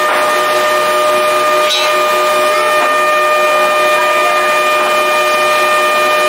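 A workshop machine running steadily: a constant whine of several steady tones over a hiss, with a short burst of rougher noise about two seconds in.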